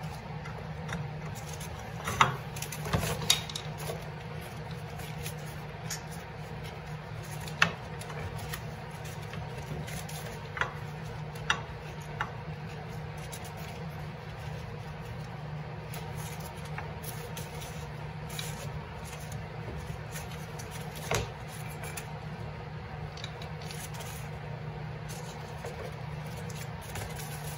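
Scattered sharp clicks and knocks as parts are handled around a snowmobile's clutches, a few close together near the start and one more about two-thirds of the way in, over a steady low hum.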